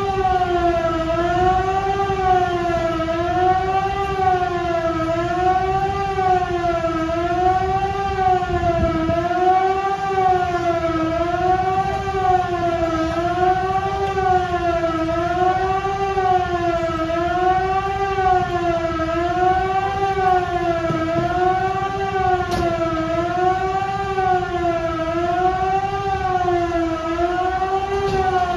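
Firehouse station siren sounding for a call, a loud steady wail whose pitch rises and falls in an even, regular wave.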